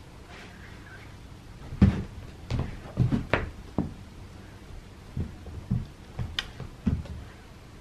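A cat playing with balls on a carpeted floor: about a dozen irregular soft thumps and knocks from its paws as it runs and pounces. They start about two seconds in, and the first is the loudest.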